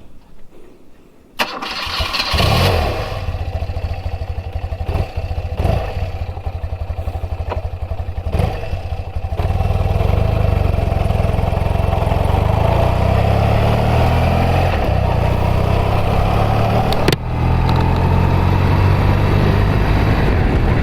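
BMW R100RS's air-cooled boxer twin started on the electric starter about a second and a half in, catching and running with uneven revs. From about ten seconds in it runs louder and steadier, with one brief dip near the end.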